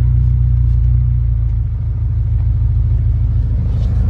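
A loud car's engine and exhaust droning low and steady, heard from inside the car, easing off slightly about two seconds in.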